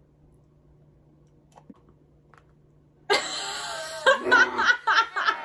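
A few faint snaps as a giant hollow chocolate shell is cracked apart by hand, then about three seconds in a woman bursts out laughing, loud, in rapid pulses.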